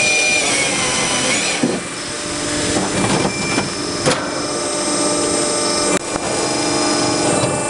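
TMS-45 firewood processor running: a steady mechanical hum with several high whining tones, broken by a couple of sharp knocks about two and four seconds in.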